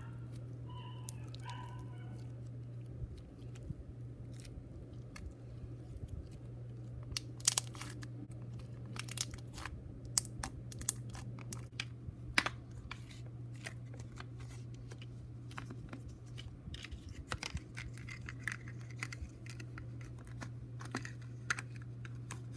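Hands pulling, poking and squishing a hardened, tough mini slime with gems in it, making irregular sharp clicks, snaps and small tearing pops, most of them from about seven seconds in. A steady low hum runs underneath.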